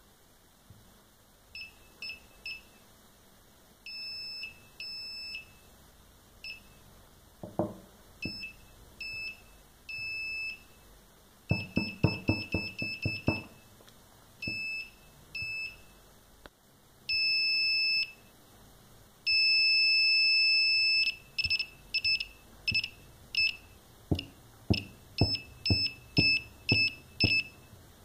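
Small buzzer of a homemade laser tripwire alarm (an LDR and 2N7000 transistor circuit) sounding a steady high-pitched tone in irregular beeps: many short ones, a few longer, and two long tones of a second or two near the middle. It sounds each time the laser beam on the light sensor is broken. A few soft knocks come in among the beeps.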